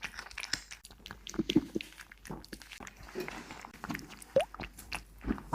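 A cat eating, chewing and smacking its food in short irregular clicks and crunches, with a brief rising squeak about four seconds in.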